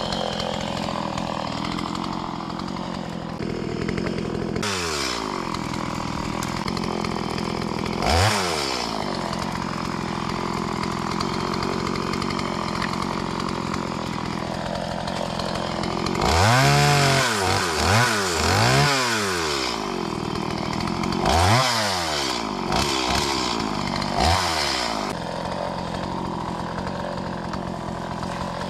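Chainsaw engine running throughout, idling between revs, while cutting up branches for firewood. Its pitch climbs and falls with each throttle blip: single revs early on, a steady stretch in the middle, then a quick run of revs in the second half.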